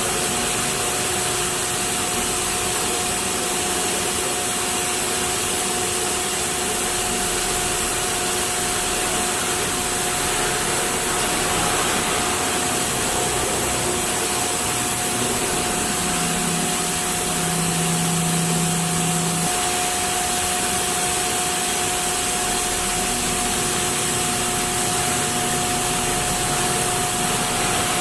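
CNC router machinery running steadily: an even mechanical hiss carrying two constant whining tones. A low hum comes in for about three seconds past the middle.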